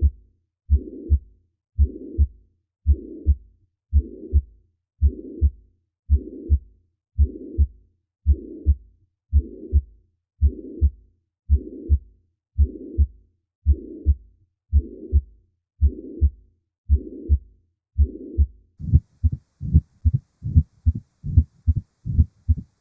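Recorded heart sounds played as a teaching example of a murmur: each beat has two short, low heart sounds (S1 and S2) and a rushing murmur, repeating about once a second. About nineteen seconds in, it switches to a different, louder heart recording with faster beats.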